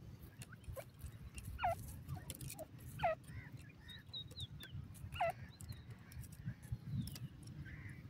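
Grey francolins calling: three loud, short sweeping call notes about one and a half to two seconds apart, with a few soft high chirps between them, over a low steady rumble.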